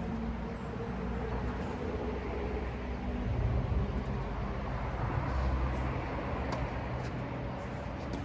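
Low, steady engine rumble with a constant hum, swelling about three to six seconds in, with a few faint ticks.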